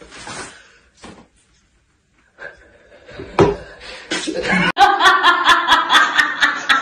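A woman laughing loudly in quick, even bursts of about four to five a second, starting a little after halfway. Before that, only brief scattered sounds.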